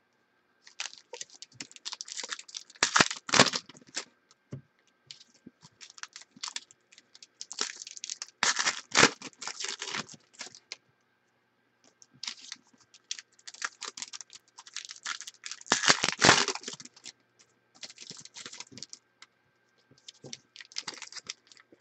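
Trading card packs and cards being handled: wrappers crinkling and tearing and cards clicking and sliding against each other, in several short bursts with quiet gaps between.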